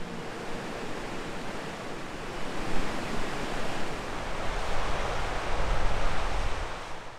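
Wind rushing and gusting against the microphone: a steady noise with a low rumble that swells to a peak a little after the middle, then cuts off suddenly at the end.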